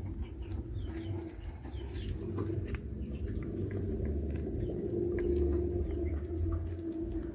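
A flock of broiler chickens making low, steady murmuring calls, with a few faint ticks over it.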